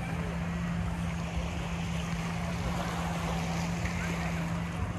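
Small waves washing onto a pebbly sand beach, with faint distant voices of people on the shore over a steady low hum.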